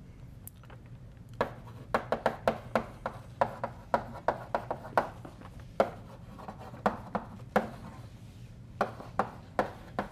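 Chalk writing on a blackboard: an irregular run of short, sharp taps and scrapes in quick clusters as each letter is struck, with brief pauses between words.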